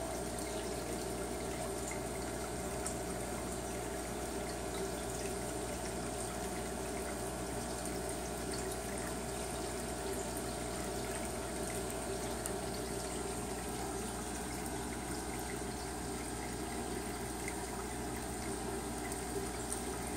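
Aquarium water trickling and bubbling steadily, as from the tank's air-driven filtration, with a steady hum underneath.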